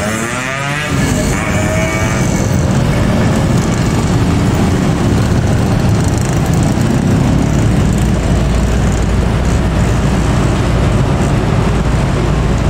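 Busy motorcycle and scooter traffic: many small engines running and passing together in a steady mixed drone with a low rumble.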